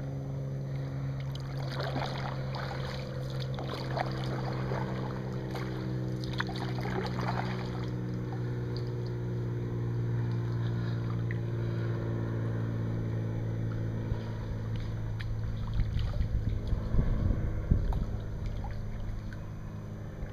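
Kayak paddles dipping and dripping in calm water, with a steady low motor hum underneath. Low rumbling bumps of wind or handling on the microphone come near the end.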